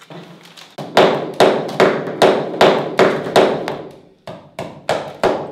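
Regular hammer blows on wood, about two to three a second, each ringing briefly, with a short break a little after the middle.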